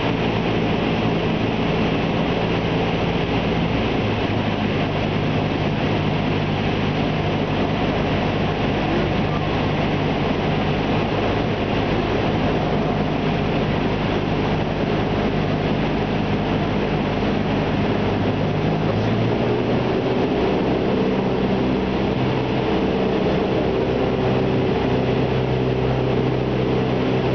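Cessna 172's piston engine and propeller, heard from inside the cabin: a steady drone with airflow noise. The engine note shifts to a different setting about two-thirds of the way through.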